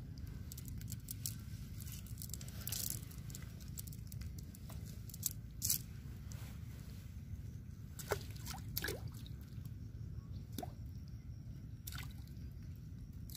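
Scattered short wet squelches and slaps as small fish and a cast net are handled on mud, over a steady low rumble.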